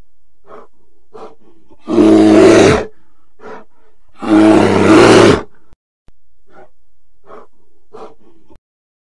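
Bear roar sound effect: two loud roars, each about a second long, about two and four seconds in, with short soft grunts between them.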